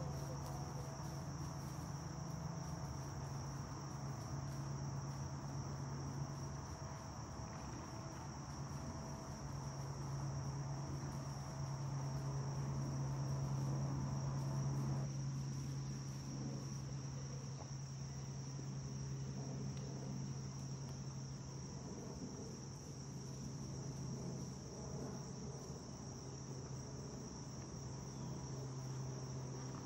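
Steady high-pitched insect chorus, a continuous trill that does not let up, over a low steady hum.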